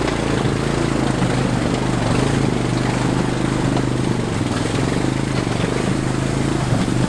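ATV engine running at a steady, unchanging pitch as the quad fords a river towing a trailer, over a constant rushing haze.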